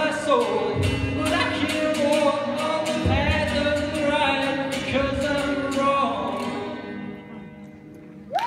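Live acoustic song ending: a voice singing long held notes over acoustic guitar and cajón, the last chord dying away near the end. A whoop from the audience rises just at the end.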